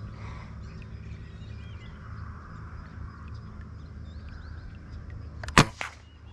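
A single sharp shot from a scoped, suppressor-fitted rifle about five and a half seconds in, followed by a fainter second crack. Before it, faint bird chirps.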